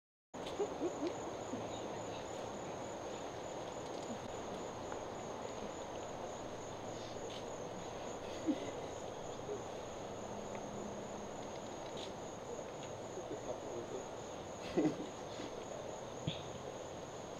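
Crickets trilling steadily in a high, finely pulsing tone over low outdoor ambience, with a few faint clicks; the sound cuts in abruptly just after the start.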